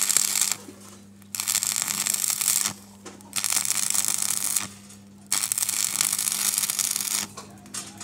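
Stick-welding arc crackling and sizzling as a bead is laid on a steel door hinge, in four runs of one to two seconds with short breaks where the arc stops and is struck again. A steady low hum runs underneath.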